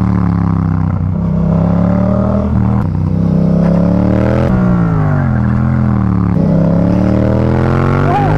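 Yamaha MT-07's parallel-twin engine with a Mivv exhaust, heard from on the bike, its revs rising and falling with the throttle through tight corners. The pitch falls, climbs, drops sharply about halfway through, then falls and climbs again near the end.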